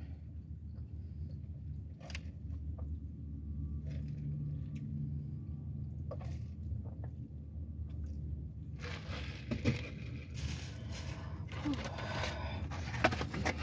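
Food packaging crinkling and rustling as it is handled and opened, starting about two thirds of the way through. Before that only a steady low hum inside the car with a few faint clicks.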